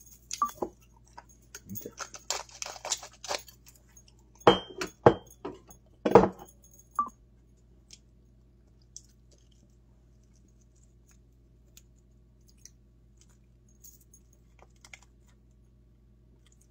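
Handling noises: a run of clicks, rustles and sharp knocks, loudest about five to six seconds in, then only a few faint ticks for the rest.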